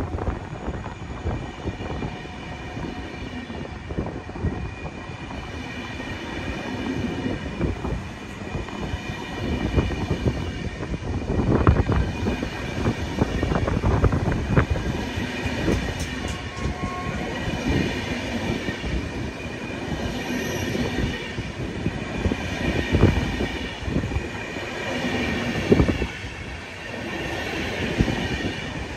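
PKP Intercity passenger coaches rolling slowly past along a platform: irregular knocks and clatter from the wheels on the track, with a steady high whine throughout.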